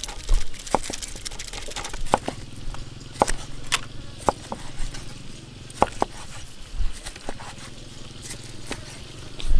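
Cleaver slicing through pork belly and knocking on a wooden chopping block: irregular sharp knocks roughly a second apart, over a faint low hum.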